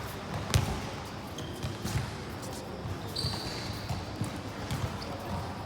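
Basketball game in a gym: a basketball bouncing on the court, the loudest thud about half a second in, and a brief high sneaker squeak a little past halfway, over a steady din of voices in the hall.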